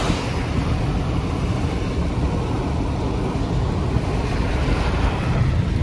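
Steady road noise heard inside a moving car on a rain-wet road: a low rumble under a hiss of tyres on wet pavement.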